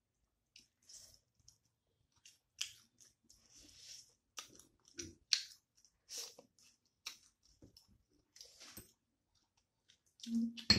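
Close, wet chewing and biting of bony local chicken curry eaten by hand with rice: irregular lip smacks and mouth clicks.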